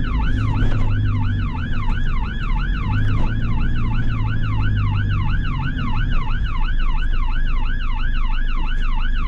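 Fire engine siren sweeping rapidly up and down, about two and a half times a second, over the low rumble of the vehicle's engine.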